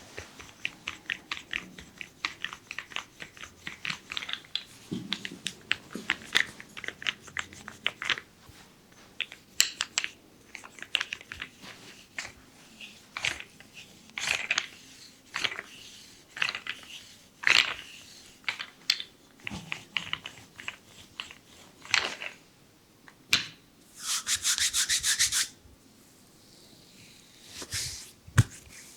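Hands rubbing and stroking bare skin in a leg and foot massage, a long series of quick, uneven strokes. A brisk run of fast rubbing comes near the end.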